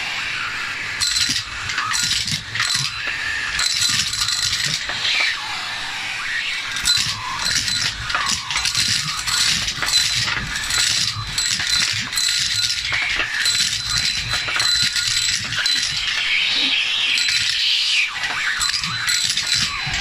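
Vacuum cleaner running with a steady whine while its metal wand sucks up coins, which rattle and clatter up the tube in many quick clicks.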